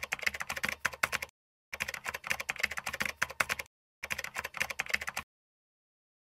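Computer keyboard typing sound effect: three runs of rapid key clicks separated by short, dead-silent gaps, stopping about five seconds in.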